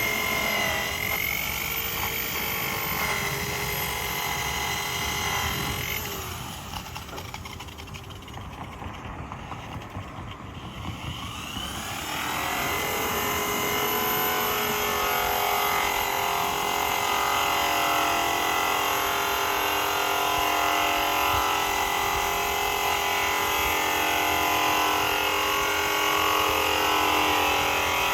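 Power tool spinning a buffing wheel to polish aluminium with metal polish, running with a steady whine. It winds down about six seconds in, then spins back up with a rising whine about twelve seconds in and runs steadily.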